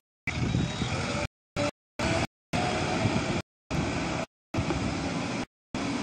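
JCB 3DX backhoe loader's diesel engine running as the machine drives, a steady noisy sound that cuts out to dead silence several times, roughly once a second, in short gaps.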